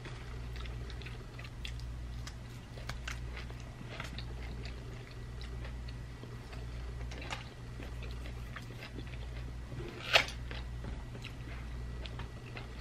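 Two people chewing and biting dried beef jerky and crisp mango slices, with many small scattered mouth clicks and crunches and one louder crackle about ten seconds in.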